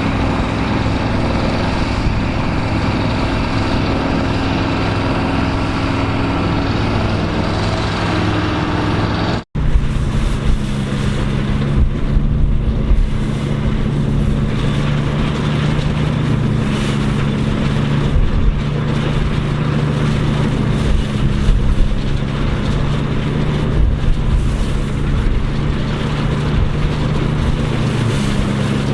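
Engines of vintage farm machinery running steadily. About nine seconds in the sound cuts sharply to a different, deeper-running engine with occasional knocks.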